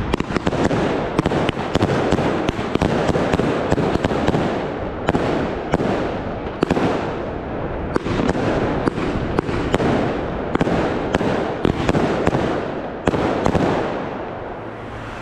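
Fireworks going off densely: a steady crackling rumble with many sharp bangs, easing slightly near the end.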